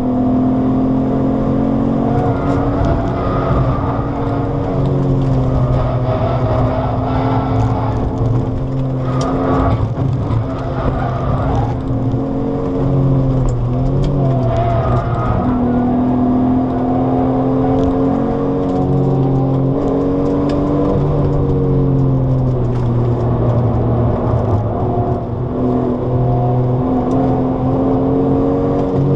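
Alfa Romeo 156's Busso V6 engine under hard driving, heard from inside the cabin. Its pitch climbs under acceleration and drops back with lifts and gear changes, several times over.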